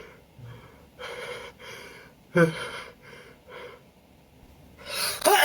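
A man's short, shaky sniffing and hitching breaths come every half second or so, then a loud, rising gasp near the end. It is the build-up to an allergic sneeze, his nose irritated by perfume.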